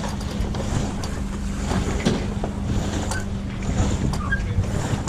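Wind buffeting the microphone and water rushing past the hull of a sailboat under way, with a steady low hum underneath and a couple of short high squeaks.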